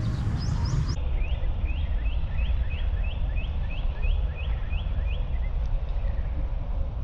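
A bird calling in a quick, regular series of short rising chirps, about three or four a second, that stops about five seconds in, over a steady low rumble.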